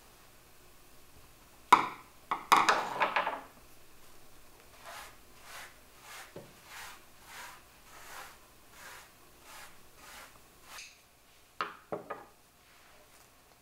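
Scissors snipping through dried loofah sponge, and the stiff, dry sponges crackling and rustling as they are handled and stacked on a wooden table. A sharp snip about two seconds in is followed by a burst of crackling, then a run of soft, even swishes about every half second, and a few sharp clicks near the end.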